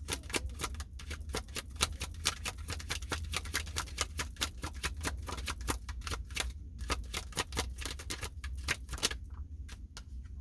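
Tarot cards being shuffled by hand: a quick, steady run of clicks that stops about nine seconds in.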